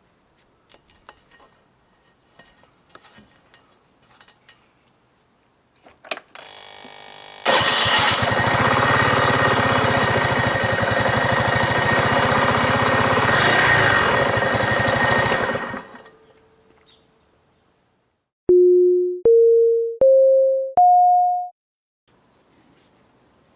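Suzuki Let's 4G scooter's 49 cc single-cylinder four-stroke engine starting after a brief crank and running steadily for about eight seconds before it is switched off, after its oil change. Near the end come four short electronic beeps, each higher than the last.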